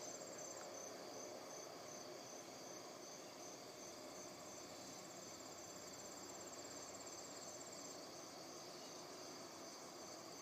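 Faint, steady chorus of crickets trilling and chirping at a high pitch; one higher trill drops out and comes back partway through.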